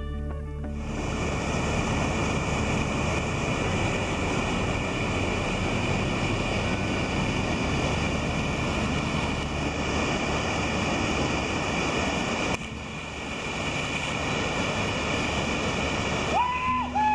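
Gambier Creek's flowing water, a steady rushing noise with a sudden cut about twelve seconds in. Near the end there is a short whistled call that rises and falls twice.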